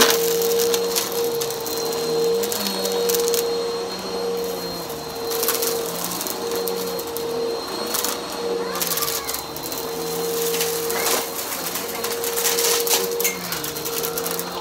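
Bissell bagless upright vacuum running on carpet: a steady motor whine whose pitch wavers slightly as it is pushed back and forth, with scattered crackles and clicks as crunchy debris is sucked up and rattles through the machine.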